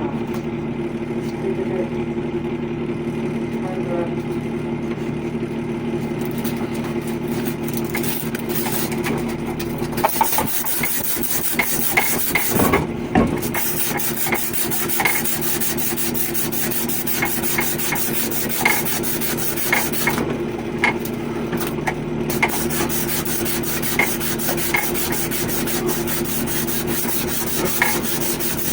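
Rubbing and scraping on a copper pipe being cleaned for repair, with short clicks, picking up about ten seconds in, over a steady machine hum of several low tones.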